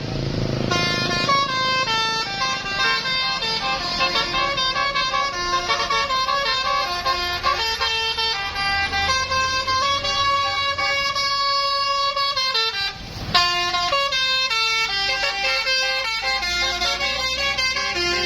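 Bus 'telolet' multi-tone musical horn playing a quick melody of stepped notes, with the bus engine running low underneath. The tune breaks off for a moment about thirteen seconds in, then starts again abruptly.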